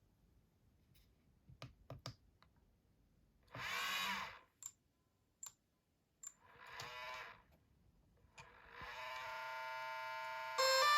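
DJI Air 2S drone starting up: a few clicks and two short whirring bursts, then a steady high whine of many tones that comes in about nine seconds in and grows louder near the end. The owner suspects the whine is a broken internal fan.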